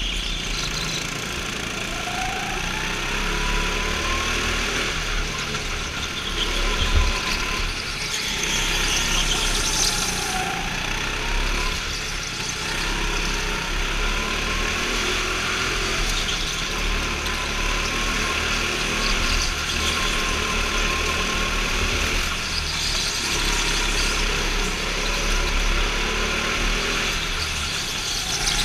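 Go-kart engines running on an indoor track heard from on board, the pitch rising and falling as the throttle opens and closes through the corners. A short knock about seven seconds in.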